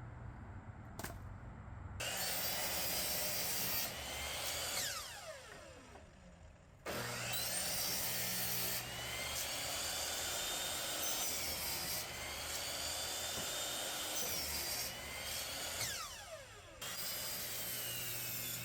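Electric miter saw cutting kiln-dried oak splits into chunks. The motor starts abruptly three times and whines under load through the wood, with a falling whine as the blade spins down between cuts.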